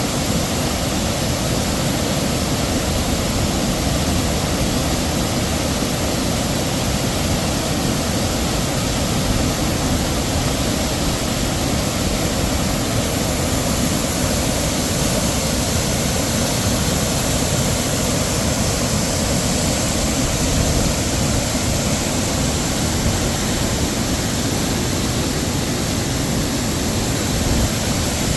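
Heavy waterfall: a steady, unbroken rush of falling water.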